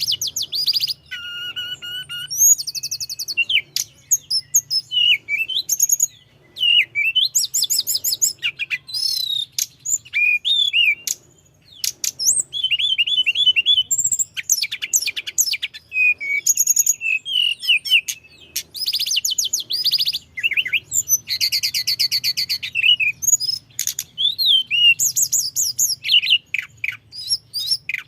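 Tledekan gunung (Sunda blue robin) singing in a continuous rolling song: rapid, varied phrases of high trills, whistled notes and chirps following one another with only brief pauses. A faint low hum sits underneath.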